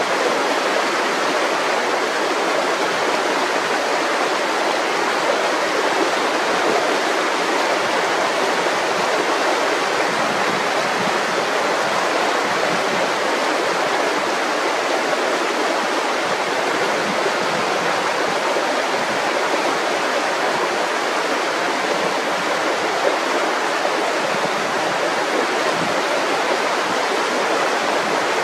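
Mountain river flowing, a steady rush of water that holds even throughout.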